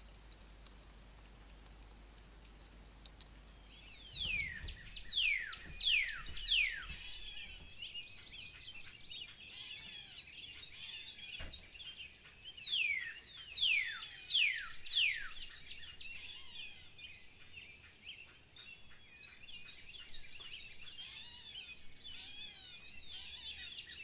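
Birdsong chorus: many birds chirping densely, with two runs of three or four loud whistles that each fall sharply in pitch. It starts about four seconds in, after a faint steady hum.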